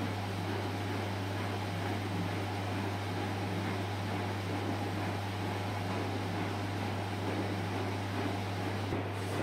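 Girbau MS-623 washer-extractor running, a steady low hum under an even rushing noise.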